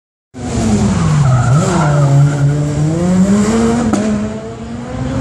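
Rally car engine running hard at high revs. Its pitch sags, jumps up briefly about one and a half seconds in, as on a gear change, then climbs steadily.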